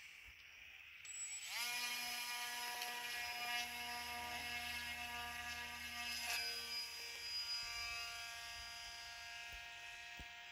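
Electric motor and propeller of an Opterra RC flying wing spinning up with a rising whine about one and a half seconds in, then running at a steady high whine through the hand launch and climb-out.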